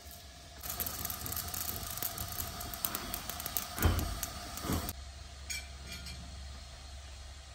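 A sheet of paper burning over a gas stove flame, crackling and rustling, with two dull thumps near four and five seconds in. The crackling dies away about five seconds in.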